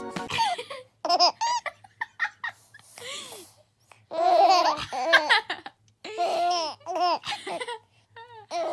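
Babies laughing in short, high-pitched bursts of giggles and squeals, with brief pauses between them.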